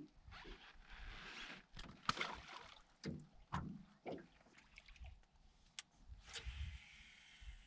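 Faint sounds of anglers working on a fishing boat: small knocks and clicks of tackle being handled, low rumble, and two spells of hiss lasting about a second each, one near the start and one about six seconds in.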